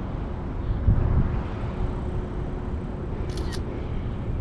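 Two quick camera shutter clicks about three seconds in, over a steady low outdoor rumble with a faint hum.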